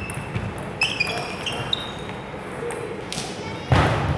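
Table tennis rally: the celluloid ball pinging off bats and table about five times in quick, uneven succession, then a loud burst near the end as the point finishes.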